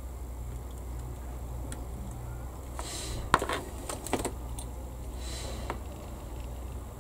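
Small metal hobby tools, tweezers and side cutters, set down on a workbench: a few sharp clinks about three to four seconds in, with light handling rustle, over a steady low hum.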